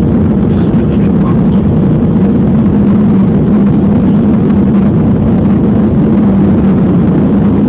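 Airliner in flight heard from inside the passenger cabin during the landing approach: a loud, steady noise of engines and rushing air with a constant low hum.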